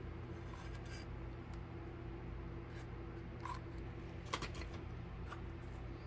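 Light handling clicks and taps as a hot glue gun is worked against a candle holder and jute rope is pressed on. A quick cluster of clicks comes about four seconds in, over a steady low hum.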